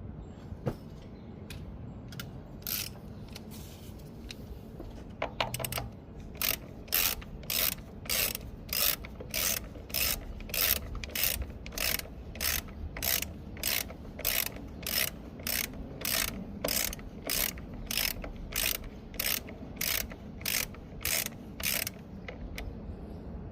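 Socket ratchet being worked back and forth, clicking in short bursts about twice a second, as a new PCV valve is screwed into the engine's valve cover.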